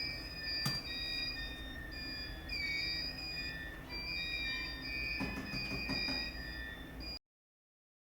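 Overlapping steady high tones, each held about half a second to a second and some gliding a little, over a low rumble with a few sharp knocks; it all cuts off suddenly about seven seconds in.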